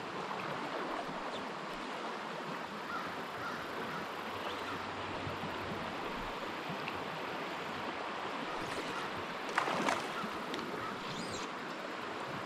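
Steady rush of a flowing trout stream, with one short splash on the water about ten seconds in.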